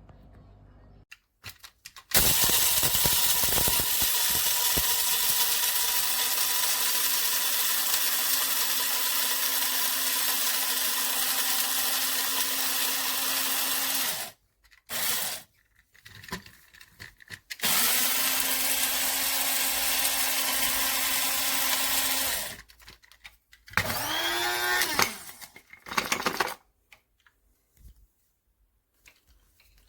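Small electric grinder motor running in two long bursts, about twelve seconds and then about five, with a short burst between them and a brief whirr that rises and falls near the end.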